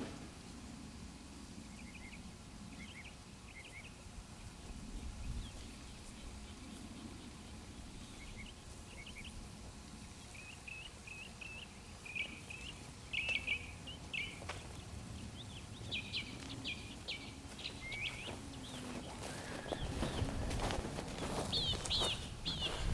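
Small birds chirping: quick, high chirps in short runs, coming more often in the second half. A low rumble with a few knocks rises near the end.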